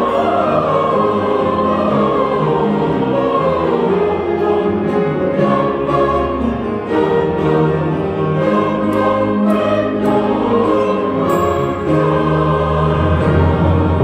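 Large mixed church choir singing a Christmas carol with a small orchestra of bowed strings and percussion, with a few sharp percussion hits in the middle.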